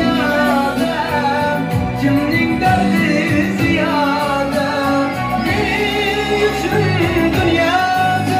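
A song: a singer's gliding vocal melody over instrumental accompaniment.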